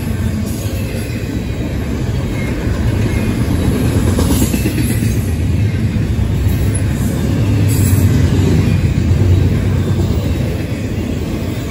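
Intermodal freight train passing close by: steel wheels of double-stack container cars and trailer-carrying cars rolling over the rails in a steady low rumble, a little louder about eight seconds in.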